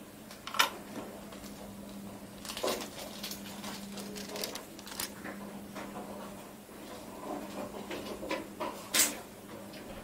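A steady low hum runs under scattered light clicks and knocks. The sharpest click comes about half a second in and another near the end.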